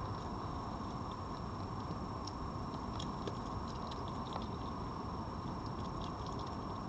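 Red fox eating from a food plate: small, irregular chewing and crunching clicks, over a steady background hiss and hum with a faint constant high whine.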